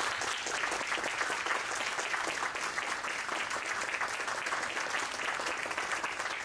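Guests applauding, many people clapping steadily together.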